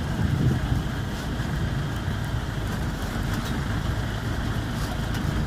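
Safari jeep's engine running, a steady low rumble heard from inside the vehicle.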